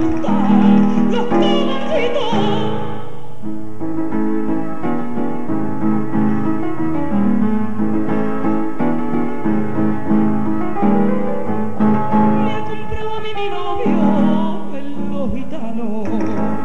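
Recorded sevillanas music in a passage between sung verses, keyboard chords holding the harmony, with a wavering melody line over it near the start and again near the end.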